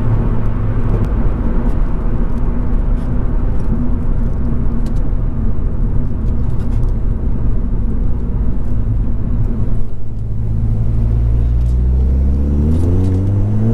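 Ford Fiesta ST 180's 1.6-litre turbocharged four-cylinder engine and Milltek non-resonated exhaust, heard from inside the cabin while driving, with steady road noise. Near the end the revs climb steadily under acceleration, then fall away sharply.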